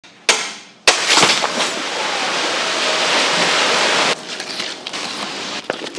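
A sharp knock, then a truckload of mullet pouring off a tipping truck bed onto a wet floor: a steady rushing hiss that stops suddenly about four seconds in, followed by scattered wet taps of fish landing and shifting.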